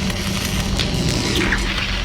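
Background music, with a few brief sharp hits in it.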